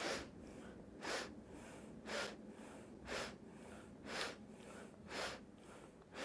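Short, sharp sniffing inhales through the nose, about one a second, seven in all: the forced nasal breaths of a breathing exercise done in rhythm with light squats.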